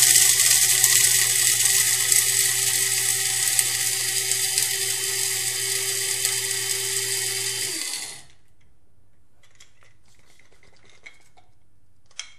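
Krups F203 electric blade grinder's 200-watt motor running at full speed, chopping coffee beans with its steel blade. The grinding gets gradually quieter as the beans break down to grounds, then stops about eight seconds in. A small click of the plastic cover being lifted off comes near the end.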